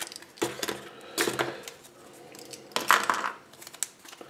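A yellow plastic Kinder Surprise capsule and the small toy pieces inside it being handled: a few sharp clicks and taps of hard plastic, with a rustle of paper about three seconds in.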